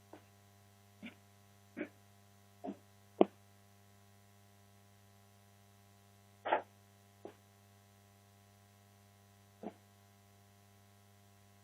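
A steady low electrical-sounding hum, with about eight short, soft knocks or rustles scattered over it. The sharpest and loudest comes about three seconds in, and a slightly longer one comes past the middle.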